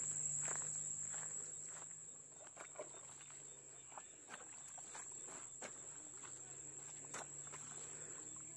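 Steady high-pitched trilling of field insects, with a scattering of soft knocks and scrapes from hoes chopping into wet soil.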